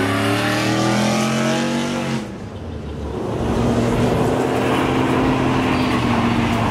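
Pickup truck V8 engine revving up under acceleration, its pitch rising, until it cuts off about two seconds in. Then an engine held at steady high revs over a loud rushing noise.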